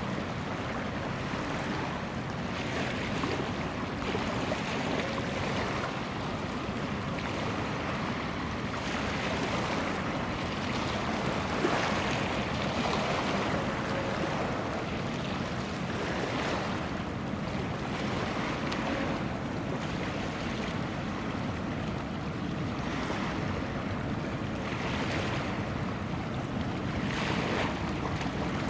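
Small waves washing and lapping over a rocky, seaweed-covered shoreline, swelling every few seconds, over a steady low rumble of wind on the microphone.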